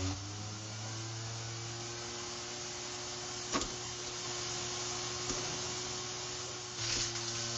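Electric motor of a Flymo hover mower running in an impact-test rig with its blade spinning: a steady hum over a hiss. A sharp knock sounds about three and a half seconds in and a fainter one near five seconds, and the sound grows louder and noisier near the end.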